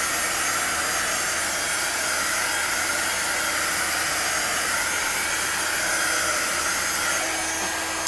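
Small handheld hair dryer running steadily on high, blowing air across wet acrylic paint: an even rush of air with a faint motor hum.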